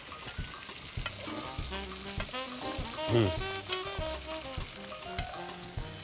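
Striped bass fillets sizzling in hot oil in a nonstick frying pan, with a metal spoon scraping and tapping against the pan, over light background music.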